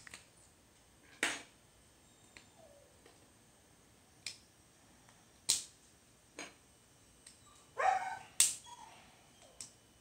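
Sharp clicks of a LEGO Gallimimus figure's plastic parts being snapped and fitted together, about eight irregular clicks with the loudest near the end. A dog whines faintly in between.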